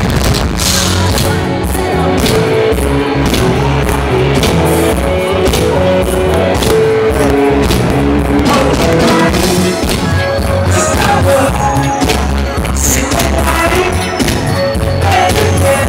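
A live band with a singer, electric guitars and drums plays loud through a big concert PA, heard from amid the crowd.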